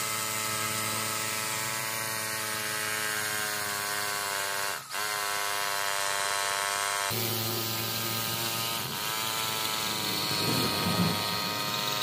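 Electric hammer drill boring into a ceramic floor tile, its motor running with a steady whine. The whine dips briefly and picks up again about five seconds in and once more near nine seconds, then grows rougher and more uneven near the end as the bit cuts through.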